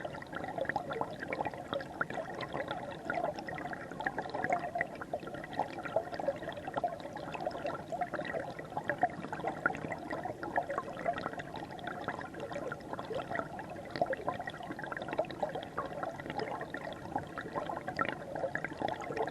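River water flowing, heard up close from within the stream: a continuous rushing wash with many small splashes and gurgles.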